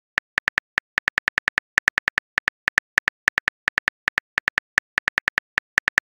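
Phone keyboard typing clicks: a rapid, uneven run of short sharp taps, about six a second, as a text message is typed out letter by letter.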